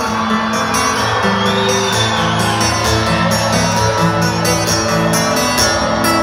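Live rock band playing an instrumental passage: electric guitars over bass and drums, held notes with a gliding guitar line high above.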